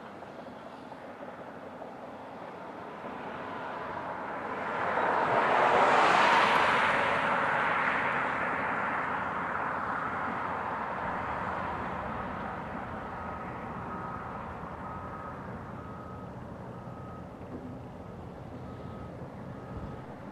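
Heavy mining machinery running at a distance in an open-pit mine. About four seconds in, a vehicle's noise swells loud and then slowly fades as it passes nearby. From about halfway on, a reversing alarm beeps faintly at a steady pitch, once every second or so.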